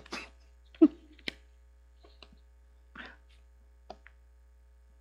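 A quiet pause with a few short scattered sounds: a brief throat sound about a second in, a couple of light clicks, and a short breathy noise near the middle.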